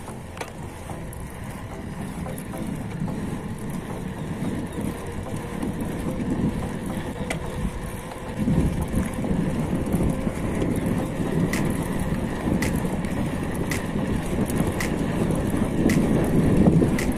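Wind buffeting the microphone with tyre rumble from a bicycle rolling along a concrete road, growing louder about eight seconds in. A light tick comes about once a second in the second half.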